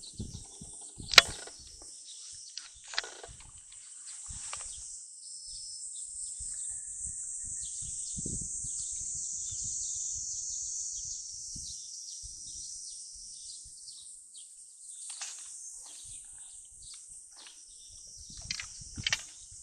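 A steady high-pitched insect chorus, swelling in the middle and easing again, with scattered faint knocks and a sharp click about a second in.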